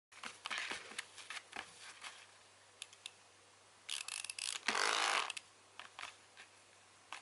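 Clockwork spring motor of a wind-up toy mouse ticking and whirring in irregular bursts, longest and loudest for about half a second just past the middle, mixed with soft taps and scratches as a kitten paws at the toy.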